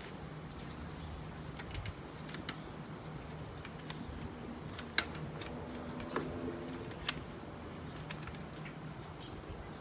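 Scattered light clicks and taps from a storm-door closer and its mounting hardware being handled and fastened, about half a dozen over several seconds, the sharpest about five seconds in, over a steady low hum.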